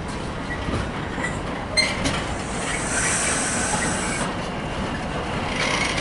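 Container freight train's flat wagons passing close by, wheels clattering and rumbling on the rails, with a sharp click a little under two seconds in and a high metallic squeal for about a second midway.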